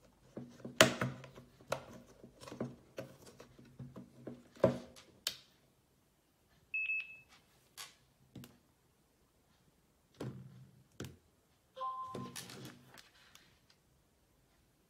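AA batteries clicking and knocking as they are pressed into a spring-loaded battery holder. Then a short high beep, and near the end a short electronic tone of a few rising notes from the phone as it begins charging, among light handling knocks.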